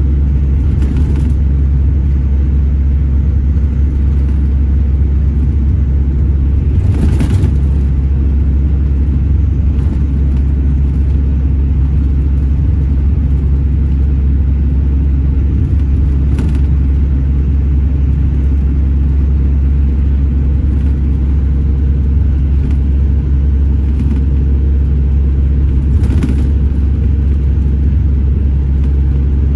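Scania Irizar Intercentury 12.32 coach heard from inside the passenger cabin while cruising: a steady, loud low engine and road drone, with a few brief faint hisses.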